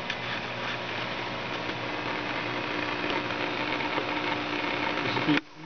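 Steady mechanical noise with a constant hum, growing slightly louder, then cutting off abruptly near the end.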